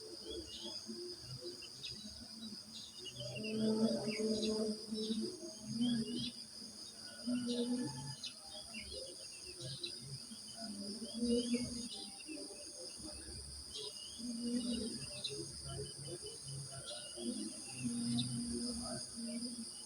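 Crickets trilling steadily, high-pitched, with birds chirping in short scattered calls over them. Low, muffled pitched sounds come and go every second or two underneath.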